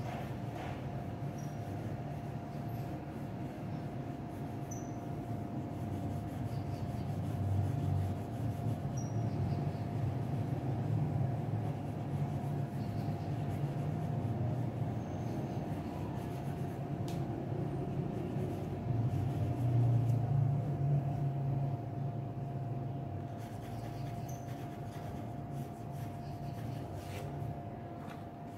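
Faint pencil strokes scratching on drawing paper under a steady low rumble and a constant hum. The rumble swells about eight seconds in and again around twenty seconds.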